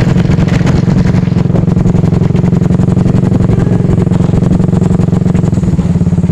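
Motorcycle engine running steadily as the bike rides along, loud and even, with rapid firing pulses.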